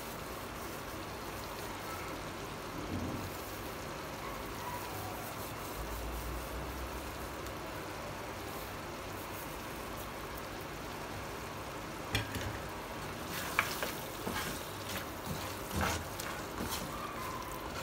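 Mutton karahi frying in a non-stick wok, a steady soft sizzle, with a wooden spoon knocking and scraping against the pan in short bursts from about twelve seconds in as the masala is stirred.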